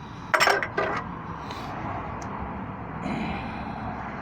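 Two short clacks of a hand tool working the alternator belt tension adjuster, about half a second apart near the start, over a low steady background.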